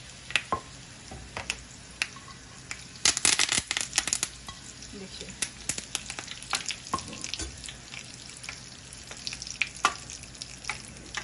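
Curry leaves and whole dried red chillies sizzling and crackling in hot oil in a small frying pan for a tadka, with a dense run of sharp pops about three seconds in.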